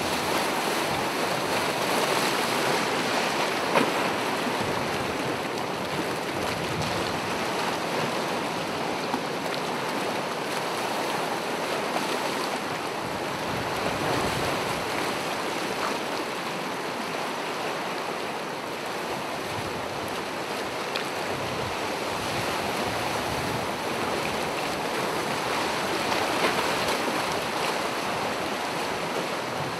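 Gentle ocean waves washing onto the shore: a steady surf hiss that slowly swells and eases.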